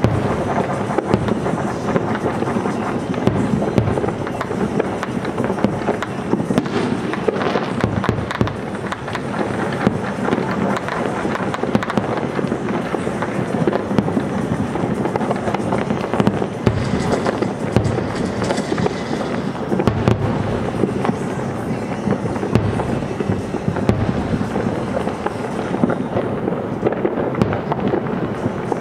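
Fireworks display: a dense, unbroken barrage of aerial shells bursting and crackling, with music playing underneath.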